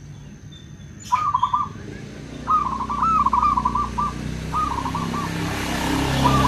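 Zebra dove (perkutut) cooing: four short, rippling, trilled coo phrases, the second one longer than the rest.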